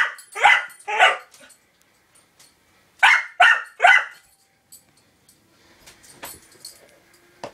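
A young blue heeler–Australian Shepherd mix dog barking sharply about six times, in two bursts of three, the second burst about three seconds in. He is barking at a spot of sunlight reflected off mirrored glass. Faint rustling and a couple of light knocks follow near the end.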